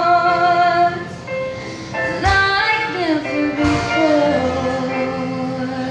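Live female vocal and accompaniment at the close of a song: a long held sung note that ends about a second in, then the music carries on with fresh notes struck about two and a half and three and a half seconds in.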